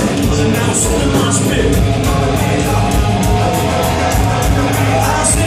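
Rap-metal band playing live at concert volume, with a steady beat and cymbals striking about four times a second over a heavy low end.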